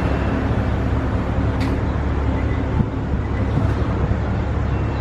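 Steady low rumble of vehicle engines and traffic, with a single sharp click about one and a half seconds in.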